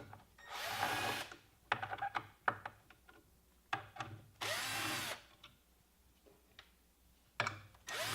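Cordless drill-driver running in three short bursts of about 0.7 s each, with small clicks and handling noises between them, as it unscrews parts of a miter saw's LED light housing.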